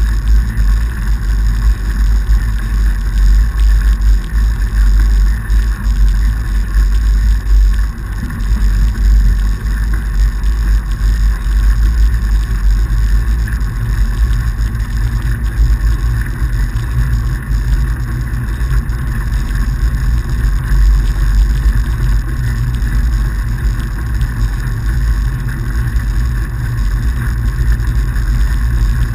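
Steady loud rumble of a fatbike riding on packed snow: the fat tyres rolling and wind on the handlebar-mounted camera's microphone, without a break.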